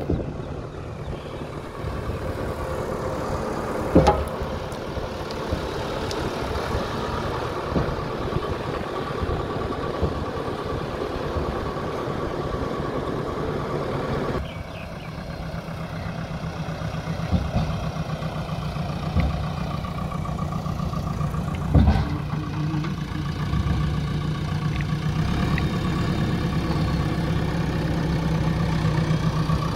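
JCB 3DX backhoe loader's diesel engine running steadily while the machine carries a concrete culvert pipe on its front loader. Two sharp knocks stand out, about four seconds in and again near twenty-two seconds, and the engine sound changes abruptly about halfway through.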